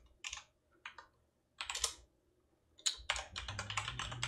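Computer keyboard keystrokes: a few separate key presses, then a pause, then a quick run of keystrokes in the last second or so, typing a password at an SSH password prompt.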